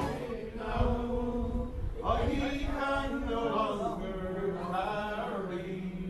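A man's voice singing slowly and unaccompanied, drawing each note out long with a slight waver.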